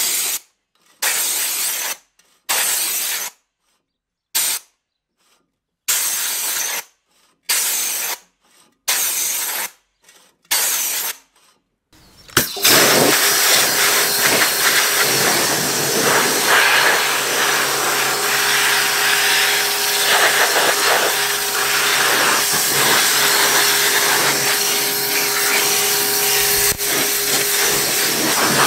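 Pressure washer jet spraying water onto a cylinder mower's reel and rollers to rinse off the lapping paste. For about the first twelve seconds it comes in short bursts of spray with silent gaps between them. Then it runs continuously: a loud hiss of spray over the steady hum of the washer's motor and pump.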